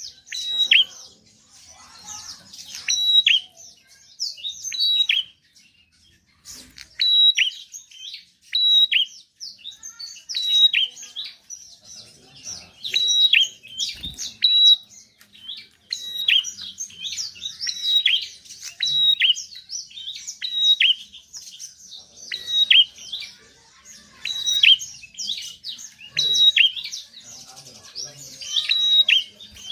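Prinia (prenjak) chattering: quick series of sharp, high chirps that sweep downward, repeated phrase after phrase with only a brief pause about six seconds in.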